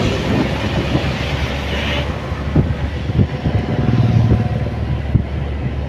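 Vehicle engine running steadily while riding along a concrete road, with wind rushing on the microphone for the first two seconds and a few thuds from bumps in the road.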